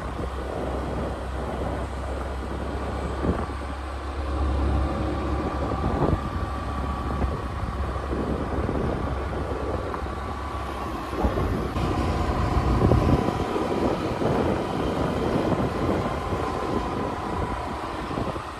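Suzuki scooter being ridden along a road: the engine runs steadily with road and tyre noise, and wind rumbles heavily on the microphone, easing about two-thirds of the way in.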